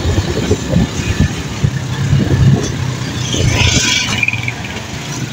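Motorcycle engine running steadily while riding, with gusty wind buffeting the microphone. A brief hiss rises about three and a half seconds in and fades again.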